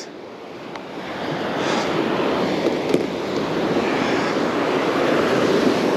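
Ocean surf washing onto the beach, a steady rushing that swells up over the first second or so.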